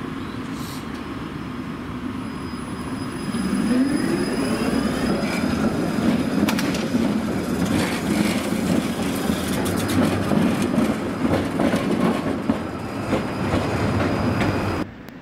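A tram passing close by and pulling away across a junction: a whine from its motors rising in pitch, growing louder about four seconds in, with the wheels clicking over rail joints and crossings. The sound cuts off abruptly near the end.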